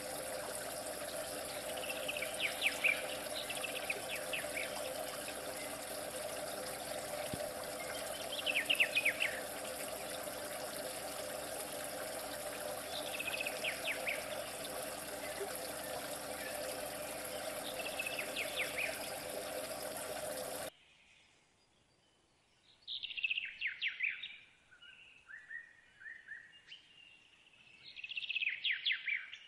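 Birds calling in short bursts about every five seconds over a steady background of running water. About two-thirds of the way through, the water noise cuts off suddenly, and the bird calls carry on alone.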